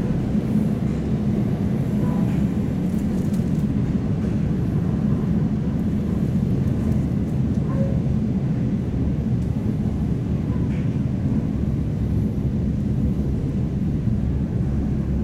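EP2D electric multiple-unit train running between stations, heard from inside the passenger car: a steady low rumble from the wheels on the track and the running gear, with a few faint clicks.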